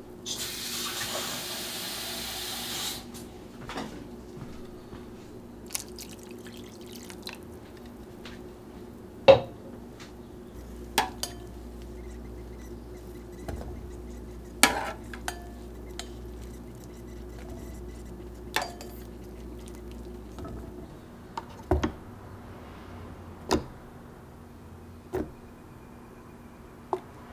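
Water pours into a pot for about two and a half seconds. Then come scattered sharp clinks and knocks of pots and utensils, over a steady low hum.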